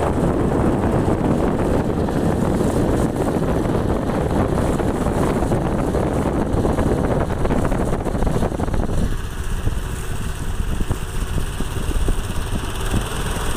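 Small boat's engine running steadily, its tone easing slightly about nine seconds in.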